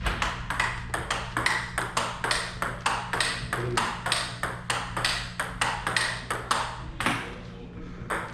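Table tennis ball hitting rubber-covered bats and bouncing on the table in a continuous rally, about three to four sharp clicks a second, over a steady low hum.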